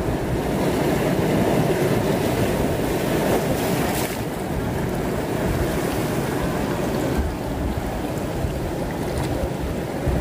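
Sea surf washing against a rocky shore in a steady rush, with wind buffeting the microphone. A single brief click comes about four seconds in.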